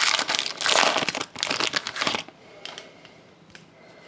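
A Panini Prizm trading card pack's foil wrapper being torn open and crinkled, loud for about two seconds, then a few faint clicks.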